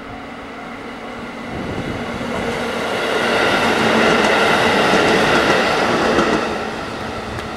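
JR Central KiYa 97 diesel rail-transport train passing close by: engine and wheels on the rails build up, are loudest from about three to six seconds in, then ease off as the loaded rail cars roll away.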